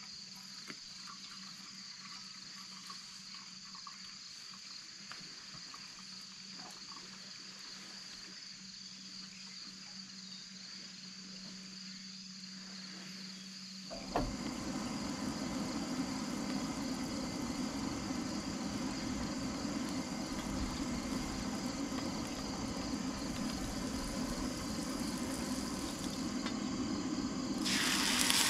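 Crickets chirping steadily in a quiet stretch. About halfway a louder steady rushing noise comes in. Near the end, beaten eggs poured into a hot skillet start to sizzle.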